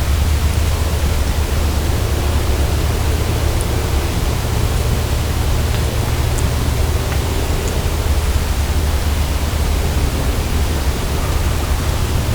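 Boosted night-time field recording from a recorder on a tree in woods: a steady hiss with a low rumble underneath and a few faint, brief ticks.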